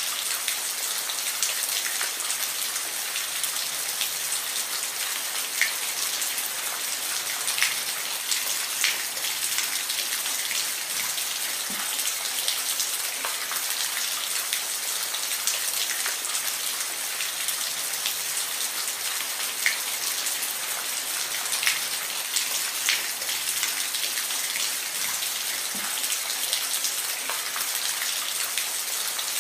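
Steady rain falling: an even hiss with scattered louder single drops ticking on a surface every few seconds.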